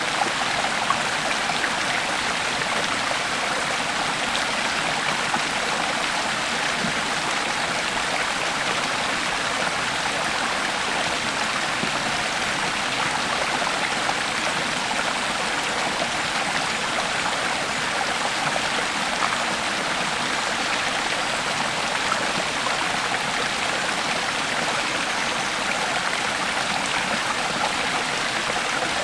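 Creek water flowing and babbling steadily over rocks, with small splashes and trickles.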